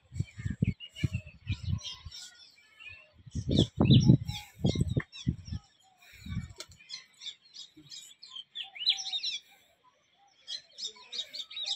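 Many small birds chirping and calling in the surrounding trees, a dense overlapping chatter. In the first half there are several bursts of low rumble on the microphone, the loudest about four seconds in.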